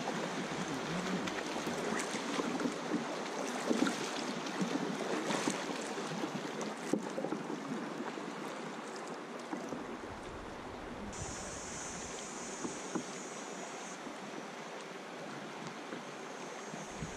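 River water rippling and splashing, with many small splashes. A high, steady buzz joins for about three seconds in the second half.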